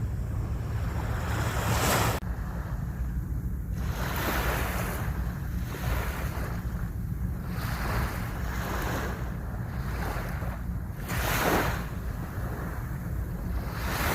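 Ocean waves breaking and washing onto the shore, the surf swelling and easing every couple of seconds. A low wind rumble on the microphone runs underneath.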